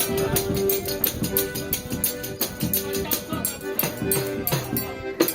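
Forró pé de serra band playing live: a quick, steady high percussion rhythm over held melody notes and a low beat.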